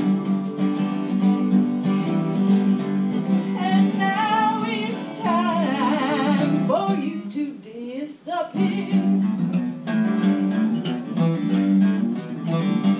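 Acoustic guitar being played, with a melody line that bends in pitch over the chords; the playing thins out briefly about two-thirds of the way through.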